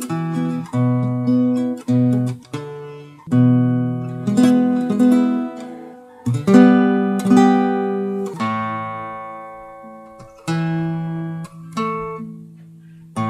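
Background music on acoustic guitar: plucked notes and strummed chords that ring and fade, with one long chord dying away past the middle.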